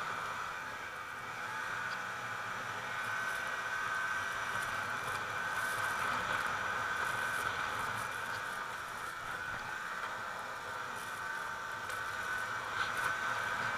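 Snowmobile engine running steadily at trail speed, heard from aboard the sled, with a high steady whine over a rushing hiss of wind and track noise; the engine note swells and eases slightly but never stops.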